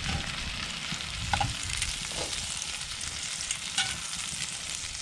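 Venison backstrap sizzling steadily in hot browned butter in a skillet, with a few light clicks of metal tongs as the pieces are lifted out of the pan.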